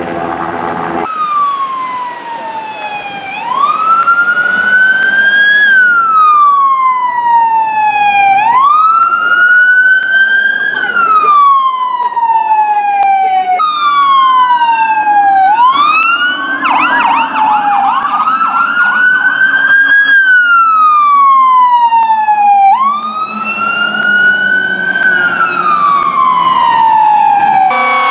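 Fire rescue truck sirens wailing, the pitch rising and falling slowly about every five seconds, with a short stretch of fast warbling about two-thirds of the way through. A steady horn-like blast is heard in the first second.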